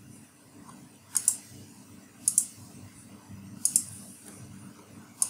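Clicking at a computer: four quick double clicks spaced a second or so apart, over a low steady hum.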